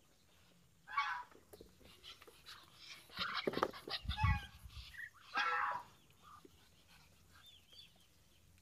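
Muscovy ducks giving several short calls, a cluster of them about three seconds in, with a dull low thump at about four seconds.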